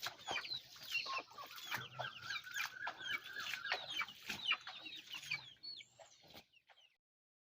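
A flock of chickens clucking and calling, with many short high chirps overlapping; the sound stops abruptly near the end.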